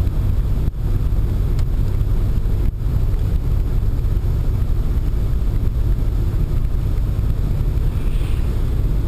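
Steady low road and engine rumble inside a Pontiac Sunfire's cabin while driving. The sound dips out for an instant twice in the first three seconds.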